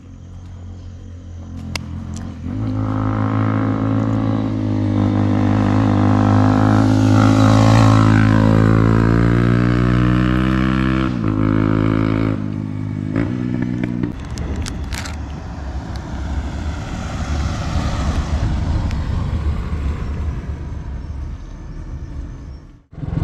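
A motor vehicle engine running close by, loud and steady for about ten seconds with its pitch sliding slightly. About fourteen seconds in it gives way to a rougher, noisier rumble.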